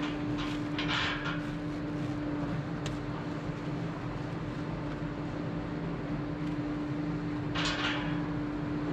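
Steady mechanical hum from running machinery, with two brief noisy bursts from handling, about a second in and again near the end.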